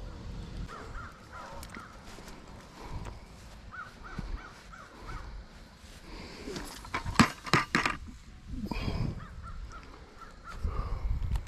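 Crows cawing, with a quick run of about five caws about four seconds in and fainter calls around it. In the middle, a loud crinkling of plastic bait packets as a hand rummages through them.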